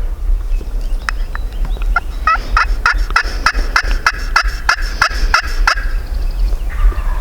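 Turkey calls: a quick, even run of about fifteen sharp notes lasting nearly four seconds, starting about two seconds in, over a steady low rumble of wind on the microphone.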